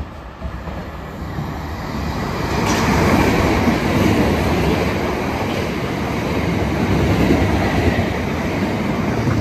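A South Western Railway electric multiple-unit train passing through the station at speed without stopping: a rushing rumble of wheels on rail that builds over the first three seconds as it arrives, then stays loud and steady as the carriages run past.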